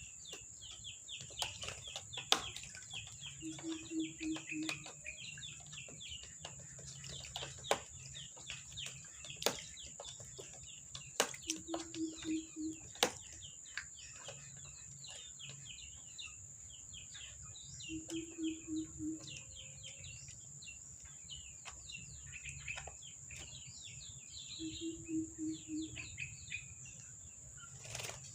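Birds calling: constant high chirping, with a short, low, rapidly pulsed call of about five notes repeating every six or seven seconds. Scattered sharp clicks come over a steady high whine.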